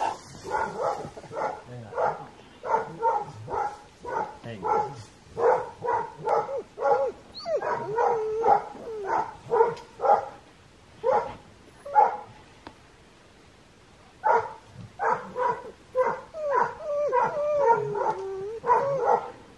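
A dog barking over and over in quick runs of short barks, with a pause partway through and a high whining between barks near the end.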